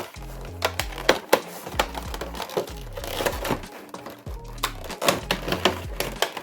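Background music with a steady bass line, over many sharp clicks and crinkles from a trading-card box's packaging being opened and handled.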